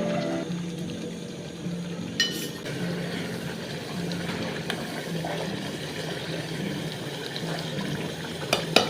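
Water running or pouring steadily, with a sharp ringing clink about two seconds in and a few knocks near the end.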